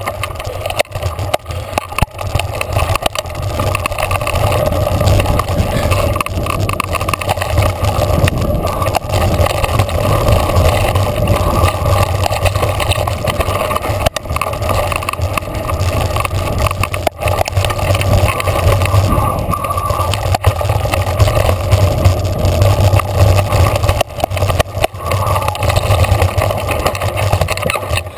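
Mountain bike riding fast down a dirt singletrack: a steady low rumble of wind and rolling on the handlebar camera's microphone, with frequent clicks and rattles as the bike goes over bumps.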